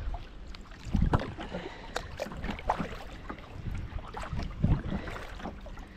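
Kayak paddle blades dipping and pulling through lake water, splashing and dripping with a stroke about every second.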